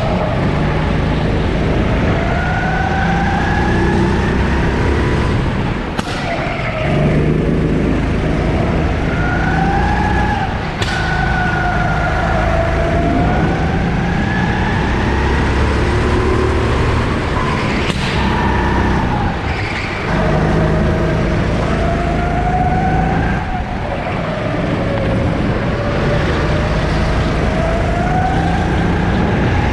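Sodi 270 cc four-stroke kart engine running hard through a lap, its pitch climbing and falling again and again as it accelerates and slows, with a few brief dips and clicks along the way.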